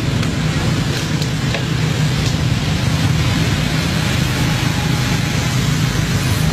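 A vehicle engine running steadily: a low rumble with a hiss over it, and a few faint clicks in the first couple of seconds.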